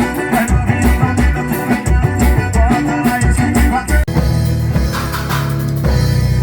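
Recorded dance music played loud through a small PA sound system, with a steady kick-drum beat; about four seconds in it cuts abruptly to a different track with a heavy held bass.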